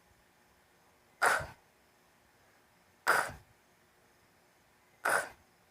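A woman's voice making the phonics sound of the letter K: a short, breathy, unvoiced /k/ said three times, about two seconds apart.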